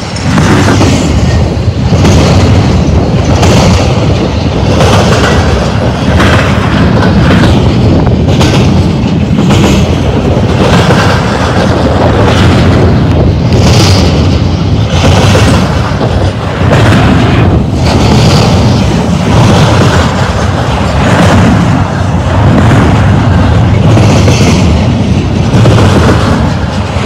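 Double-stack intermodal well cars rolling past at close range: a very loud, steady rumble of steel wheels on rail, with repeated clacks as wheel sets cross a rail joint.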